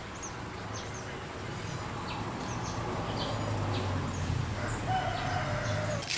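A rooster crows once near the end, a held call that falls slightly in pitch, while small birds chirp throughout.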